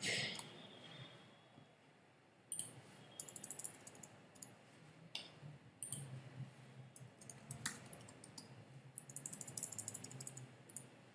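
Faint computer keyboard typing: scattered single keystroke clicks, with a quicker run of typing near the end.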